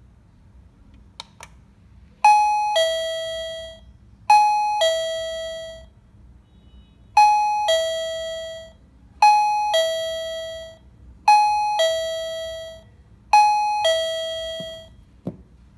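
KERUI M525 wireless doorbell receiver playing a two-note ding-dong chime, a higher note then a lower one that fades out. It plays six times about two seconds apart, with a longer pause after the second. Sharp clicks come just before the first chime and again near the end.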